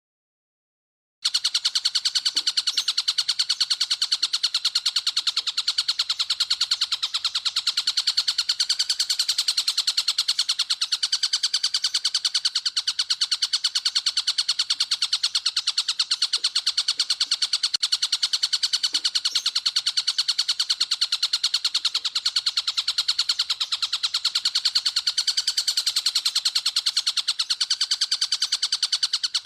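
A masteran songbird-training recording starts about a second in: one continuous, high-pitched, very fast pulsing trill that holds steady without a pause.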